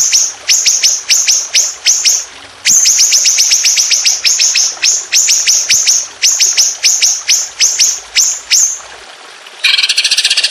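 Songbird song: quick runs of sharp, high down-slurred notes, several a second, repeated with short gaps. About a second before the end it switches abruptly to a fast, buzzy high trill.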